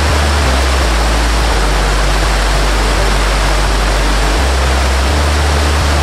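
Waterfall cascading down rock ledges: a steady, even rush of falling water, with a low deep tone underneath that shifts pitch a few times.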